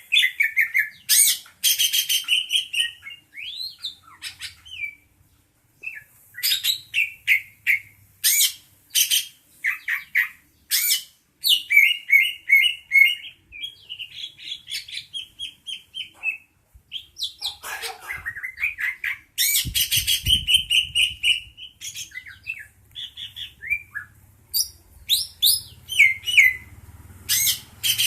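A bird chirping and calling in quick clusters of short, high notes and whistles, pausing briefly now and then.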